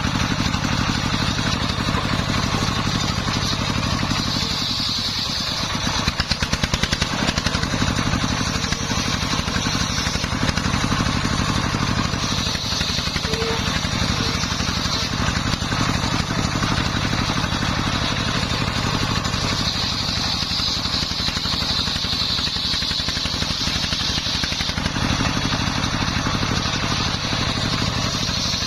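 Dongfeng 24 hp single-cylinder diesel engine running steadily, belt-driving a homemade circular saw, with a higher whine that swells and fades several times as the blade cuts through jowar wood.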